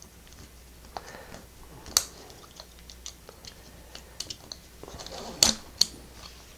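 Scattered small clicks and taps of plastic against metal as a cable tie is threaded around the housing of a disassembled Kwikset door lock, with sharper clicks about two seconds in and twice more around five and a half seconds.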